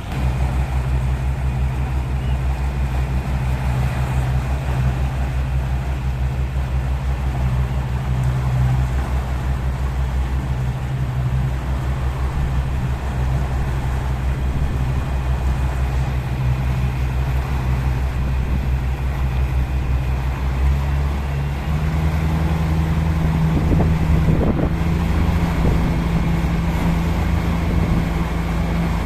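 Ship's engine running with a steady low drone and the wash of the sea, its tone stepping up slightly about two-thirds of the way through.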